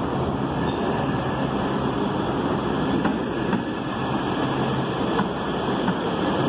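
MBTA Green Line light-rail train pulling into an underground station: a steady rumble of wheels on rails, with a few sharp clicks in the second half.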